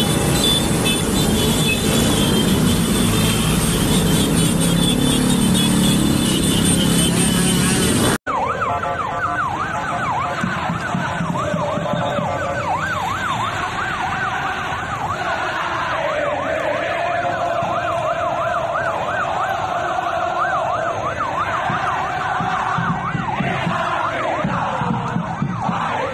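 Loud, steady traffic noise from motorcycles for about eight seconds. After a sudden cut, a police car siren yelps, its pitch sweeping rapidly up and down several times a second.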